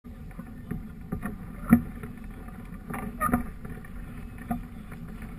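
Wind buffeting the microphone of a camera mounted on a hang glider's wing, with a few sharp knocks and rattles from the glider as it is held on the launch, the loudest about one and three-quarter seconds in and a cluster around three seconds.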